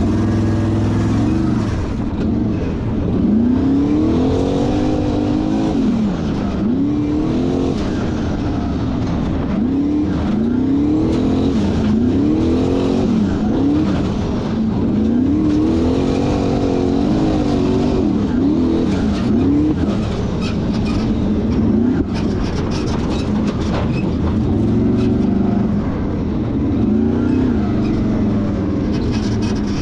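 Formula Offroad hill-climb car's engine, heard from inside the open cockpit, revving hard under load. Its pitch swings up and down about once a second as the throttle is worked, holding steadier for a few seconds past the middle.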